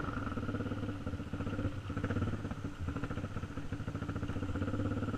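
Yamaha TT350's single-cylinder four-stroke dirt-bike engine running steadily at low speed, with an even firing beat and no hard revving.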